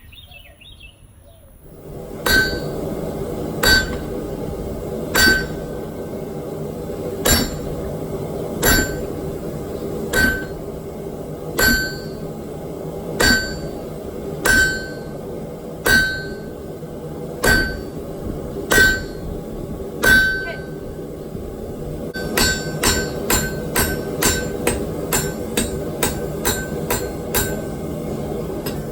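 Hammer blows on hot steel at a blacksmith's anvil, each with a short metallic ring, over a steady background noise. Heavy single blows come about every second and a half, then about two thirds of the way through they change to a quicker run of lighter blows, several a second.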